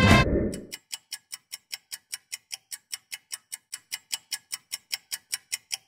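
A clock ticking fast and evenly, about five ticks a second, as background music ends about half a second in.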